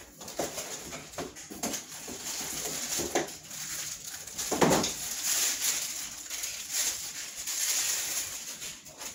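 Cardboard box and packaging rustling and crinkling as new crutches are pulled out and handled, with a few light knocks and one louder thump about halfway through.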